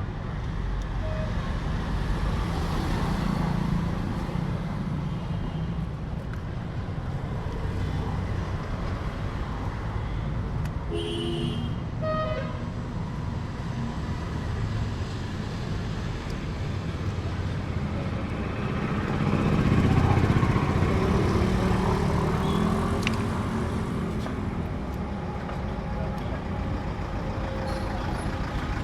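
Road traffic running past, with a short horn toot about eleven seconds in and a vehicle passing close, louder, about two-thirds of the way through.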